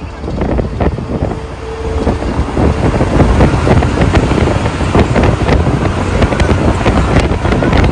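Wind rushing and buffeting on the microphone with the road noise of a car driving into a road tunnel, growing louder about two to three seconds in and staying loud inside the tunnel.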